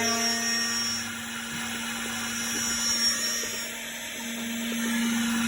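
Home-built mini CNC mill running as it mills a hexagon, a steady motor whine with machining noise. The whine dips for a few seconds in the middle, with faint ticks, then comes back up.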